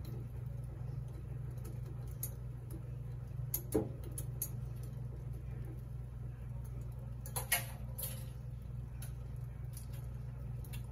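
Light clicks and taps of cooking utensils against cookware, with two louder clacks about 4 and 7½ seconds in, over a steady low hum.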